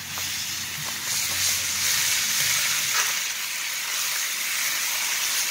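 Steaks sizzling steadily in a cast iron skillet over a wood fire, with a few small pops.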